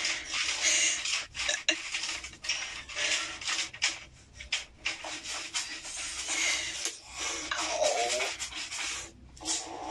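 Feral kittens hissing and spitting, a run of breathy hisses broken by short pauses. About eight seconds in there is a brief pitched cry.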